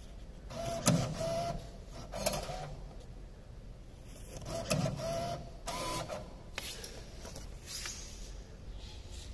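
Bill validator of a Lamassu Gaia Bitcoin ATM drawing in banknotes: two spells of motor whirring with clicks, about four seconds apart, as each note is pulled in and accepted.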